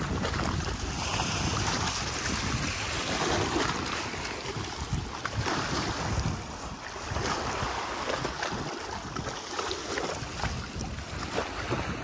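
Wind buffeting the microphone in gusts, over small waves lapping on a pebble lakeshore.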